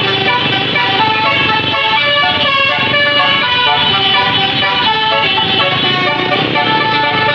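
Basuri musical air horn on a bus playing a continuous tune of shifting notes: the Indonesian 'telolet' horn sound.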